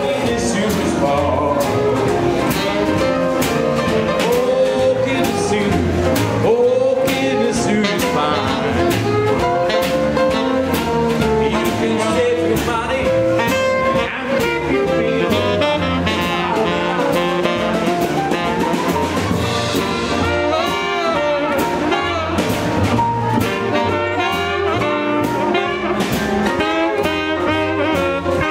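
Live swing jazz band playing: two saxophones lead over piano and upright bass to a steady swinging beat, with a long rising phrase about midway through.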